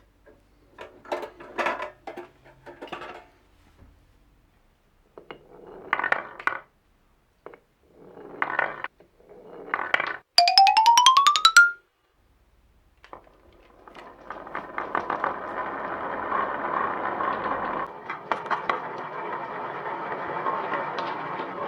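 Wooden balls running through a HABA marble run: bunches of clicks and knocks for the first ten seconds, a short rising tone about ten seconds in, then a steady rolling rattle from about fourteen seconds on.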